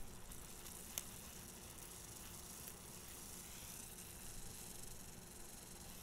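Fidget spinner spinning on its bearing between the fingers: a faint, steady, high whirring hiss, with one sharp click about a second in.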